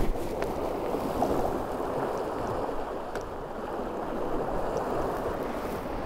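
Sea swell washing over shore rocks: a steady rush of churning, foaming water.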